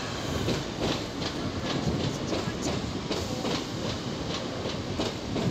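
Passenger train running past, its wheels clicking over rail joints and pointwork about three times a second over a steady rumble.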